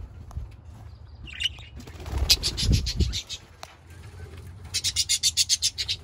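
Budgerigars chirping, with two runs of rapid fluttering pulses, about ten a second, around two seconds in and near the end, from budgies flapping their wings in flight.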